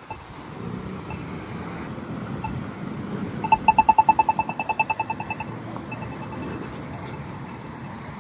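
Polara iNS2 accessible pedestrian signal push button ticking: slow locator ticks about once a second, then about a second in a rapid ticking of roughly ten ticks a second that lasts about two seconds. On this button the rapid tick takes the place of a spoken message and signals that the walk phase is on. Road traffic runs underneath.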